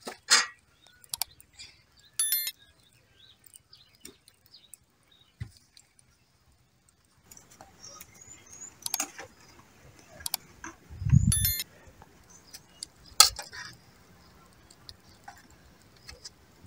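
Scattered clinks and clicks of stainless-steel bowls and cooking pots being handled, with a couple of short ringing metal clinks. Faint bird chirps come in partway through.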